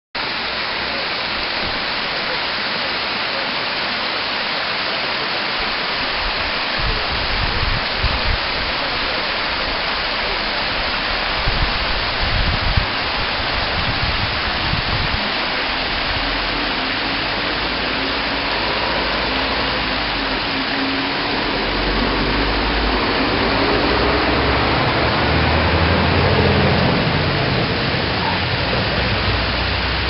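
Bigăr waterfall: water pouring in thin streams over a moss-covered rock and splashing into the pool below, a steady rushing hiss, with a few low rumbles about a third of the way in.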